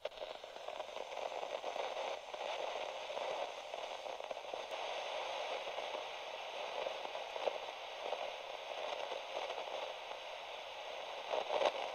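Steady crackling, static-like noise that swells slightly near the end.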